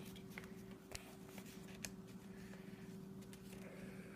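Faint clicks and rustling of small plastic toy pieces being handled, over a steady low hum.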